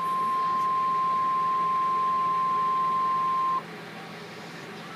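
NOAA Weather Radio 1050 Hz warning alarm tone: one steady, high-pitched tone that cuts off sharply about three and a half seconds in, leaving radio hiss. The tone signals that a warning message, here a severe thunderstorm warning, is about to be broadcast.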